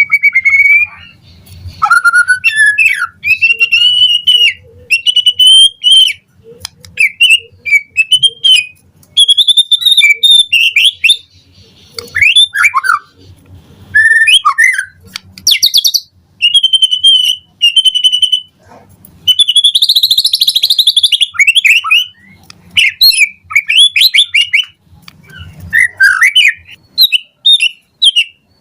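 White-rumped shama singing a long, varied song: loud whistled phrases broken by short pauses, mixed with rapid chirps and trills, and a harsh buzzy phrase about twenty seconds in.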